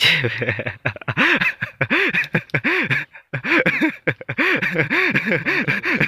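A man laughing heartily: a long run of short 'ha' syllables, each rising and falling in pitch, about three a second, with a brief catch of breath about three seconds in.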